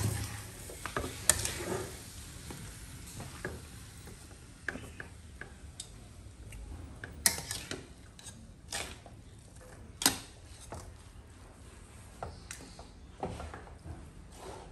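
Spatula and utensils clanking and scraping against a steel wok while tossing and stirring fried noodles with greens, over a low sizzle. There are scattered sharp clanks, the loudest right at the start and about a second, seven seconds and ten seconds in.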